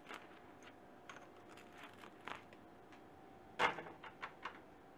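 Scattered light clicks of metal tongs and kitchen utensils, with a short clatter about three and a half seconds in.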